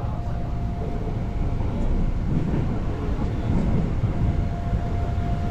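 Seoul subway train running: a steady low rumble with a constant high tone over it.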